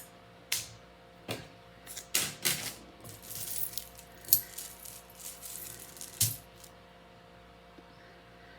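Metal costume jewelry clinking and rattling as it is handled and sorted: a run of sharp clicks and small jingles that stops about two-thirds of the way through.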